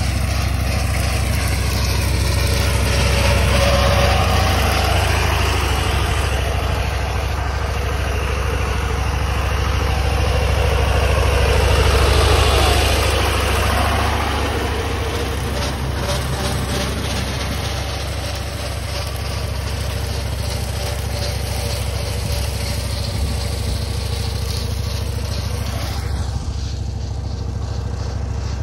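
Władimiriec T-25 tractor's two-cylinder air-cooled diesel engine running steadily while mowing grass. It grows louder around four and twelve seconds in, then eases off.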